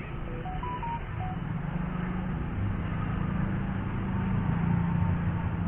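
Street traffic of passing motor scooters, their engines humming and growing louder. In the first second or so a quick run of short electronic beeps at different pitches sounds over it.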